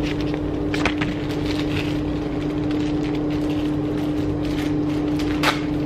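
A steady mechanical hum holding one constant tone, with a short click or handling noise about a second in and another near the end.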